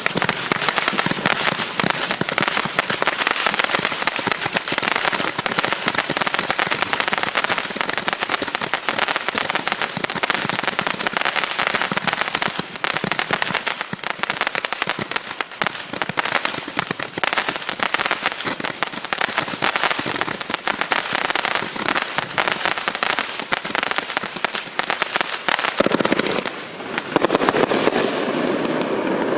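Miracle 'Zip and Zap' 432-shot 500-gram fireworks cakes firing: a dense, unbroken rapid stream of small shots and crackle. The highest crackle thins out near the end.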